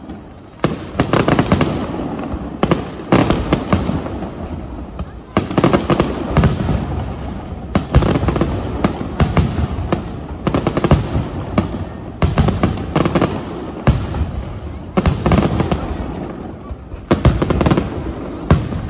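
Aerial firework shells bursting one after another: many sharp bangs, often several close together, with a few brief lulls, over a steady low background rumble.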